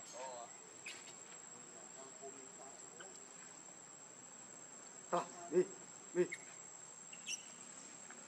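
A steady high insect drone, like crickets, with a few short, sharp macaque calls, three close together about five to six seconds in.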